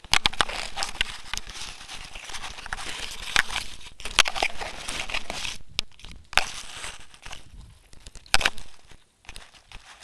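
Dry grass and plant stems rustling and crackling against a phone's microphone as it swings low through tall grass while walking, with sharp clicks of handling noise. The loudest crackles come about three and a half, four and eight and a half seconds in.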